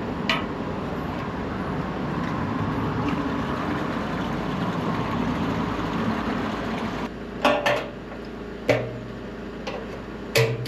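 Diesel glugging steadily out of a jerry can into a van's fuel tank, stopping about seven seconds in. Then several sharp metallic clanks as the can and its spout are handled.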